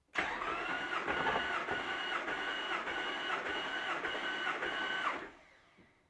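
Starter motor cranking the engine over for about five seconds during a compression test on cylinder 3, the whirr pulsing in an even beat about twice a second as that cylinder comes up on compression; it stops about five seconds in.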